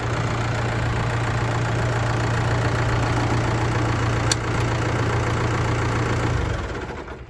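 New Holland T4 narrow-frame tractor's diesel engine idling steadily, then cutting out about six and a half seconds in.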